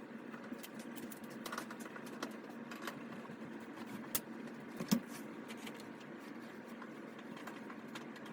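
Scattered light clicks and taps of a screwdriver working at a dryer's bottom front-panel screws, over a steady low hum, with one louder knock about five seconds in.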